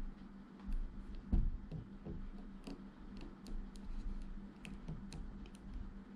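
Small, irregular plastic clicks and taps as hands move and pose an S.H.Figuarts Ultraman Z action figure, its limbs and joints being shifted, with a soft handling bump about a second in.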